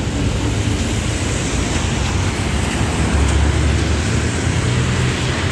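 Traffic on a rain-wet street: a steady hiss of car tyres on wet asphalt over a low, uneven rumble.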